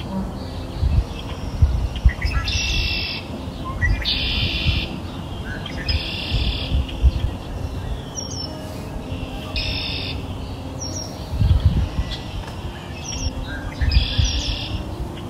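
Repeated bird calls, each a short buzzy chirp about half a second long, coming every few seconds over a low, uneven rumble.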